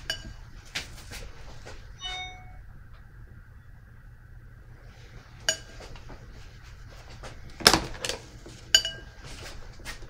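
Watercolour brush clinking and tapping against the paint palette and water jar: several sharp clinks with quiet gaps between them, some ringing briefly. The loudest comes about three-quarters of the way through.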